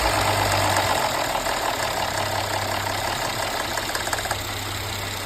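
Mercedes-Benz M276 V6 engine running at idle just after a start, on its first run after its timing chain sprockets were replaced. It settles slowly from the start-up speed, growing a little quieter.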